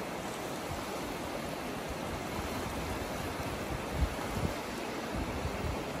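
Small waves washing in over a shallow shore, a steady hiss of surf, with two brief low bumps about four seconds in.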